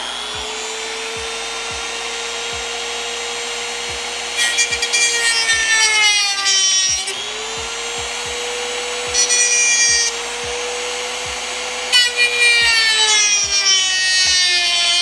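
Dremel rotary tool running at high speed with a steady whine. Three times the pitch sags and a grinding rasp rises as the bit is pressed into the material to cut it.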